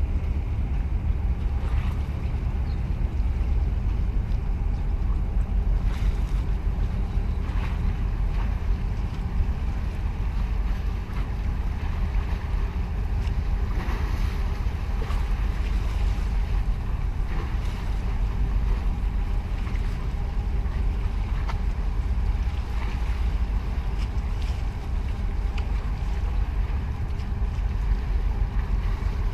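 Steady low rumble of a large container ship's engine as it passes close by, with a faint steady hum above it, mixed with wind buffeting the microphone.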